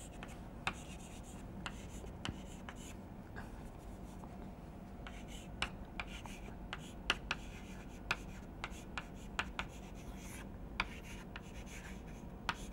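Chalk writing on a blackboard: faint strokes with irregular sharp taps as the chalk meets the board letter by letter.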